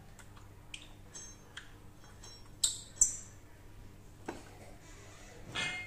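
Small metal clicks and clinks of bolts and a mounting bracket being handled and fitted on a motorcycle's rear subframe. The loudest are two sharp, ringing clinks about a third of a second apart midway, with a brief scrape near the end.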